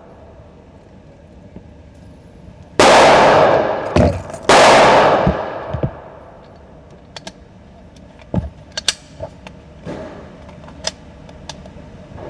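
Two gunshots about a second and a half apart, each with a long echoing tail as in an indoor shooting range, followed by scattered light clicks and knocks.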